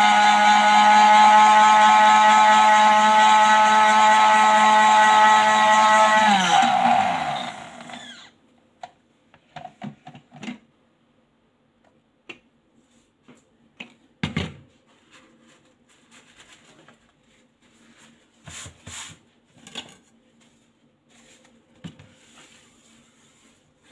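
Countertop blender motor running steadily at high speed, blending fruit into juice, then switched off about six seconds in, its pitch falling as it spins down. After that, light clicks and knocks as the jar is handled and lifted off the base, one louder knock near the middle.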